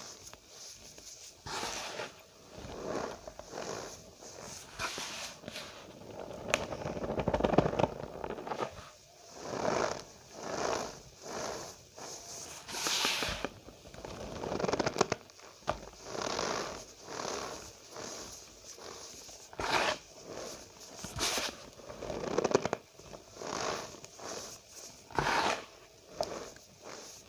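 Cornstarch powder squeezed and pressed by hand, giving a squeaky, crunchy scrunch with each press, repeated about once a second with irregular spacing.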